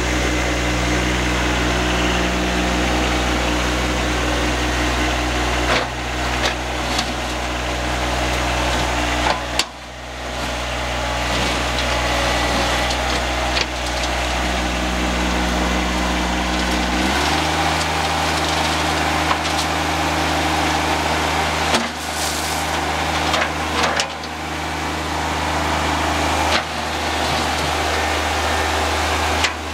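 John Deere 2305 compact tractor's 24 hp diesel engine running steadily while the tractor drives and works its front loader. The engine note shifts abruptly about halfway through and holds at the new speed. A few brief knocks and dips in level break the run.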